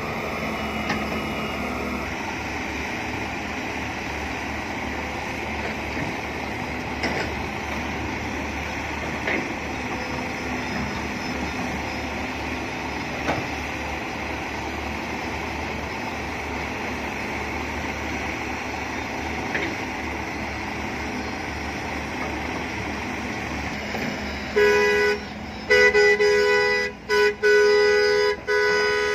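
John Deere 595D hydraulic excavator's diesel engine running steadily under load as it digs and loads soil, with a few faint knocks. Near the end a loud vehicle horn sounds in several blasts with short gaps.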